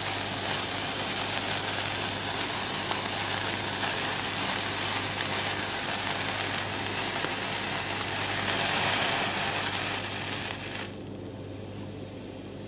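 Sparklers burning with a steady fizzing hiss and fine crackle, which cuts off suddenly about eleven seconds in as they burn out, leaving only a faint low hum.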